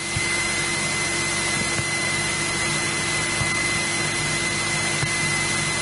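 Cabin noise of a 1964 Cessna 172E Skyhawk on final approach with flaps out: its engine and propeller run at a steady drone under a rushing hiss, with a thin high whine held throughout.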